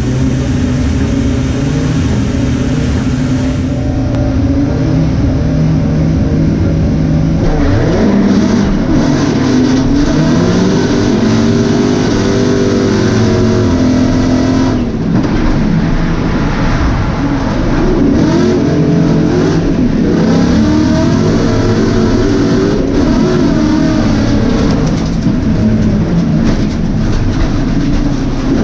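Racing car's engine heard from inside the cabin: running steadily at first, then from about seven seconds in revving hard, its pitch climbing and dropping again and again as it accelerates through the gears.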